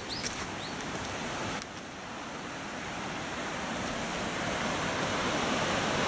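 Steady rush of a brook's flowing water. It dips briefly about one and a half seconds in, then grows gradually louder. A few short high chirps sound in the first half second.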